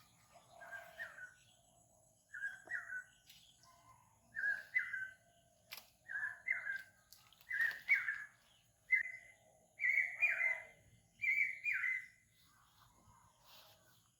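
A bird calling outdoors: a repeated two-note call, one pair about every second and a half, eight times over, stopping shortly before the end.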